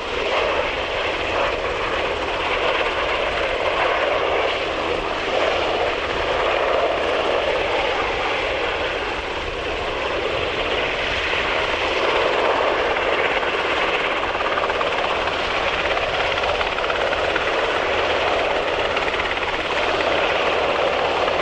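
Mitsubishi UH-60J helicopter's twin turboshaft engines and main rotor running steadily in low flight, a continuous even rush of sound.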